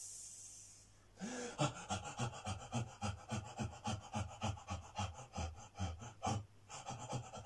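A man voicing a shadow-puppet rabbit with quick rhythmic panting breaths, about three or four a second, starting about a second in and pausing briefly near the end.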